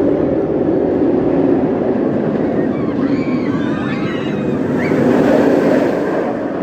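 Roller coaster train running along its track, a steady rushing rumble with wind blowing over the microphone, swelling about five seconds in.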